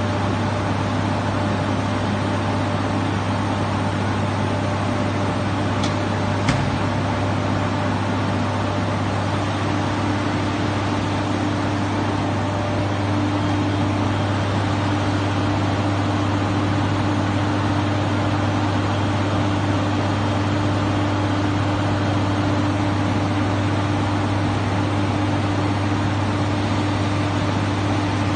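Steady machine drone with a strong low hum, from ground equipment running in an aircraft hangar. A higher steady tone joins about ten seconds in, and a single sharp click sounds about six seconds in.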